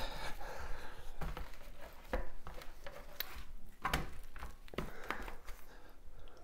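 A gloved hand rubbing oil into raw slabs of pork side ribs and lifting and turning them on metal baking sheets: soft rubbing and handling noise with scattered light knocks and taps.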